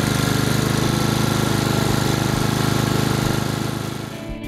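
Honda HRX476C2 lawnmower's single-cylinder four-stroke engine running steadily just after a recoil pull-start. It fades away near the end.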